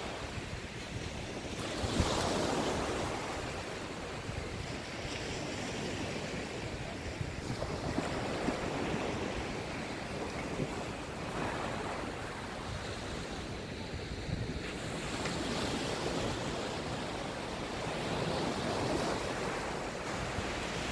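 Small surf breaking and washing up a sandy beach, swelling and easing every few seconds, with wind buffeting the microphone.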